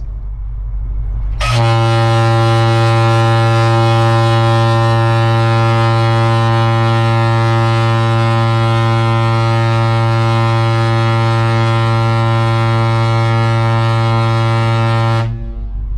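A cargo ship's aft whistle on the exhaust stack sounding one continuous deep blast of about fourteen seconds, starting suddenly a second and a half in after a low rumble: the ship's fire and emergency signal.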